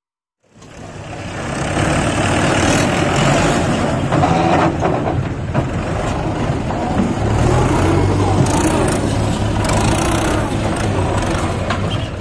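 Diesel engines of a Mahindra tractor and a JCB backhoe loader running steadily, fading in after a brief silence.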